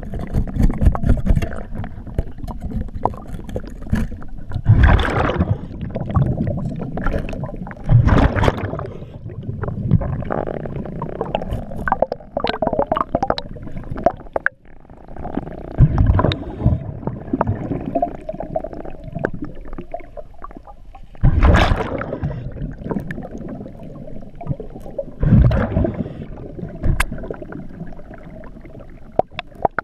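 Underwater sound of a scuba diver's breathing: bursts of exhaled bubbles from the regulator every few seconds, over a steady, muffled low rumble of water.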